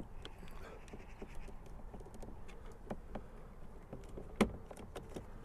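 Screwdriver blade scraping and ticking against the plastic of a car door's mirror-switch housing as the switch is prised out, with one sharp click about four and a half seconds in.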